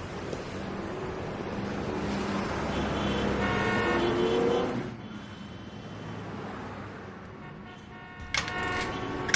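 Road traffic: a vehicle passes, swelling and fading about two to five seconds in, with a car horn sounding during the pass and again near the end.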